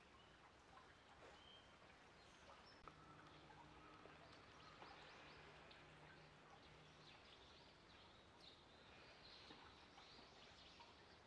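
Near silence: faint outdoor ambience with a few faint, scattered high bird chirps.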